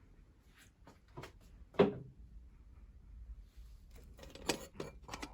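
Scattered sharp knocks and clicks of objects being handled, the loudest about two seconds in, then a quick run of clicks near the end.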